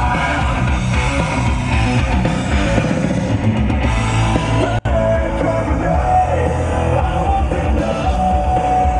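Rock music with singing and guitar playing from the car's factory Delco Bose Silver Series stereo, heard inside the cabin. It cuts out for an instant a little before five seconds in.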